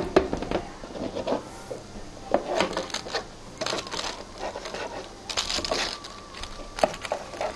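A metal knife and fork scraping and clicking against a metal baking tray while cutting through a baked pizza and lifting pieces off crinkling baking paper, in a few short scratchy spells.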